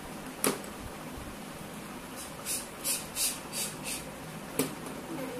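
Small plastic toy pieces handled on a plastic toy vanity set: two sharp clicks, and in between a quick run of about six short, hissy scrapes.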